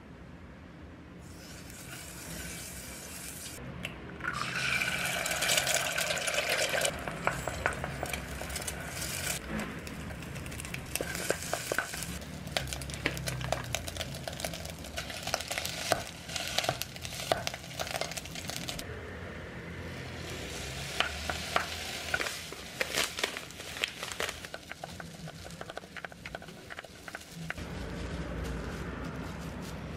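Ham, egg and rice frying in a small nonstick electric cooking pot: a steady sizzle with many quick clicks and scrapes of a utensil stirring the food against the pot.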